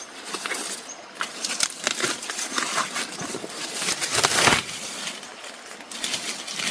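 Rustling and crackling with many short, sharp clicks and snaps, swelling to a louder rustle about four seconds in.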